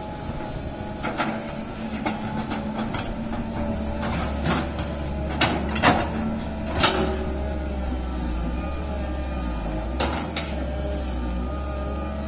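Caterpillar 320C excavator's diesel engine running under load, with tones that shift in pitch as the arm and bucket are worked. The steel bucket knocks and scrapes against the dirt and stones of the canal bank: a handful of sharp knocks through the middle, the loudest about six seconds in, and another near the end.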